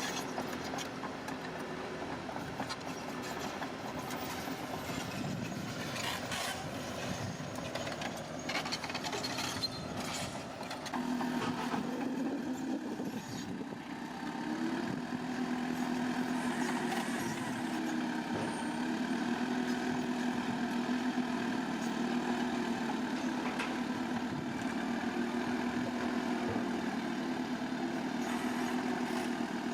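Bulldozer's heavy diesel engine running, with sharp clanks and knocks in the first ten seconds. About eleven seconds in it grows louder and steadier, then holds a strong, even drone.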